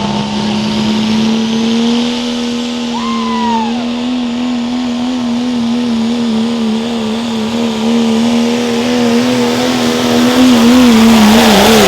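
Diesel pickup truck engine at full throttle pulling the sled: a steady high engine note that starts to waver in pitch partway through. Near the end it swings up and down about twice a second and gets louder.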